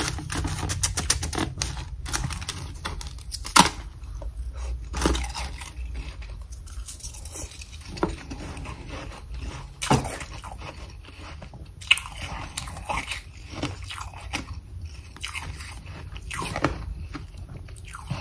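Humidifier freezer frost being chewed close up: irregular, crisp crunches of powdery ice, a few of them much louder than the rest.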